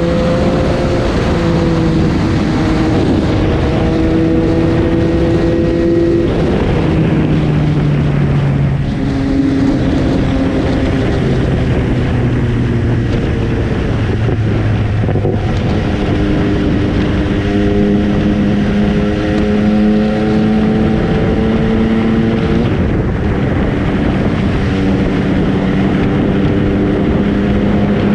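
MV Agusta Brutale 800's inline three-cylinder engine running under way, with wind noise on the microphone. The engine note drops about six seconds in and again a few seconds later, then rises to a higher steady pitch a little past the middle and holds there.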